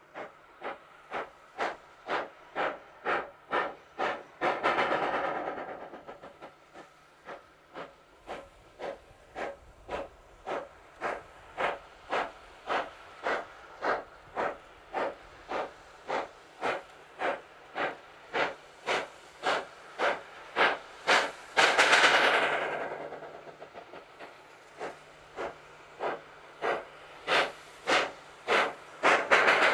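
Exhaust of a class 25NC steam locomotive working slowly: steady chuffs about two a second. Twice, about five seconds in and again past twenty seconds, and once more at the end, the beats race and run together into a loud rushing blast as the driving wheels slip.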